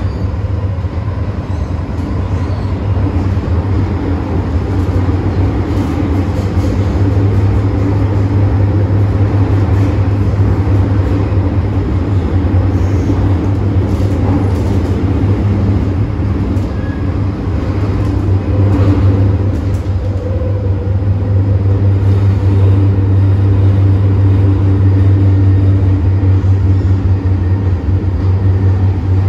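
Cabin noise of an MTR M-train running through a tunnel: a steady low rumble with several held tones from the running gear, growing slightly louder.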